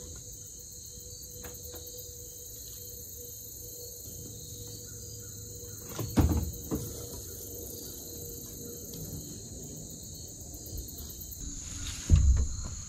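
Crickets chirping steadily, with a sharp knock about six seconds in, a smaller one just after, and a heavier thump near the end.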